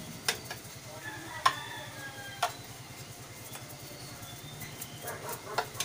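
A small paintbrush scrubbing dirt off an old air compressor's electric motor and wiring terminals, with several sharp clicks. The loudest click comes about a second and a half in, and a cluster comes near the end.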